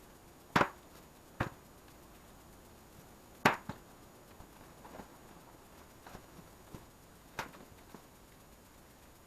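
A few sharp knocks and clicks, like hard parts or tools being set down and handled. The loudest come about half a second and three and a half seconds in, with fainter ticks between.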